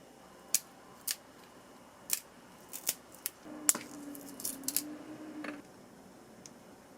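A series of sharp clicks and snips from hands-on kitchen work, about a dozen spread over several seconds, with a brief steady low hum under them in the middle.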